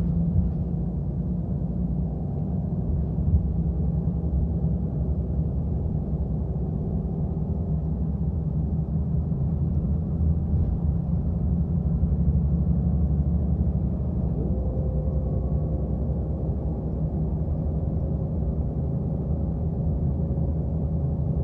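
Bus engine and tyre noise heard from inside the passenger cabin while under way, a steady low rumble. About fourteen seconds in, a higher engine note rises briefly and then holds.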